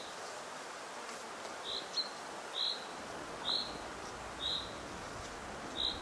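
Outdoor ambience in which a bird gives a short high chirp about once a second, five times, over a steady background hiss.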